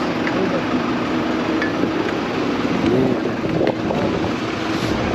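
Steady drone of a small passenger plane's engines at the gate: an even roar with a steady low hum under it.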